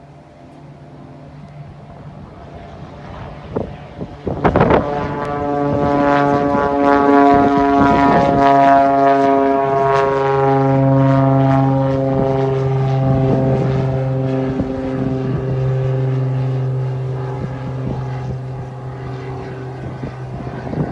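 Cessna 182 Skylane's six-cylinder piston engine and propeller droning at full takeoff power as the plane departs and climbs past overhead, growing louder to a peak in the middle, then the pitch sinks slightly and the sound fades as it climbs away. A few brief loud bumps on the microphone about four seconds in.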